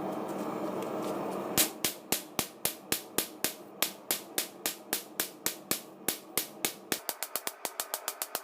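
Hammer blows on steel at the anvil, forging a leaf spring, about four strikes a second and quickening near the end. Before the hammering starts, a steady mechanical hum runs for about a second and a half and then stops.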